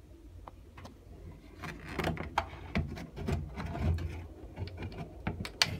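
Plastic grille of a ceiling exhaust fan being handled and partly pulled down: irregular clicks, knocks and plastic rubbing that start about a second and a half in, over a low steady hum.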